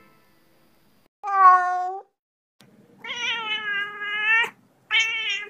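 A cat meowing three times, the middle meow the longest and most drawn out.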